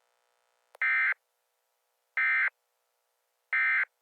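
Emergency Alert System end-of-message signal: three short, equal bursts of digital data tones about a second and a quarter apart, marking the end of the alert. A faint click comes just before the first burst.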